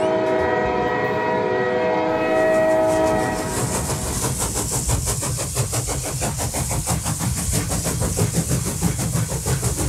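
A train horn sounds a held chord of several tones for about three and a half seconds, then gives way to a moving train's rumble and the rhythmic clickety-clack of its wheels over the rail joints.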